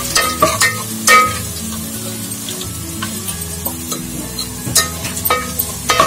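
Sliced onions and whole spices sizzling as they fry in hot oil in a pot, stirred with a ladle that knocks and scrapes against the pot several times, loudest about a second in and again near the end. The onions are browning.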